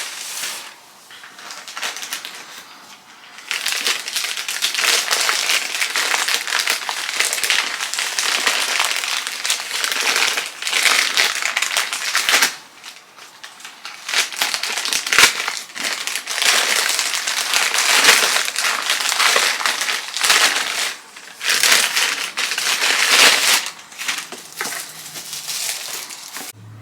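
Plastic packaging crinkling and crackling as it is handled and opened, in long stretches broken by short pauses.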